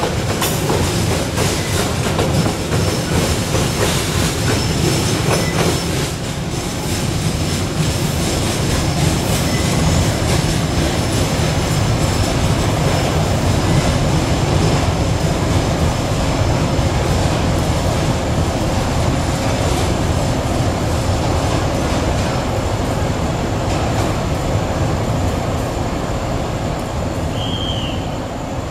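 Wagons of a long coal freight train rolling past, with steady wheel noise, rail clatter and a thin high wheel squeal. It dies away near the end as the last wagons pass.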